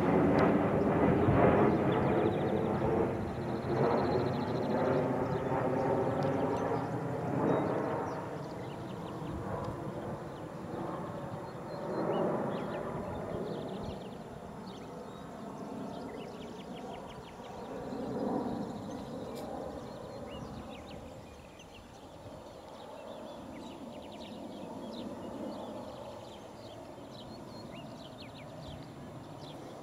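Twin-engine jet airliner flying overhead, its engine noise loudest at first and dying away as it recedes, with a couple of brief swells along the way.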